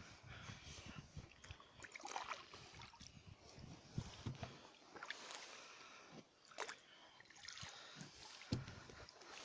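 A wooden flat-bottomed boat being paddled: faint, irregular swishes and sloshing of water, with occasional knocks.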